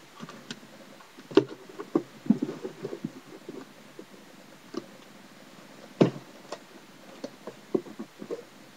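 Hands working at a well-packed box and its packing: scattered knocks, clicks and rustling, with two sharper knocks about a second and a half in and about six seconds in.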